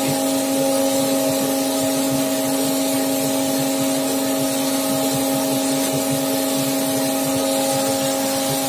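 Coffee roaster's bean-cooling tray running: a steady motor hum and the rush of the cooling fan drawing air through the beans as the stirring arms sweep them around.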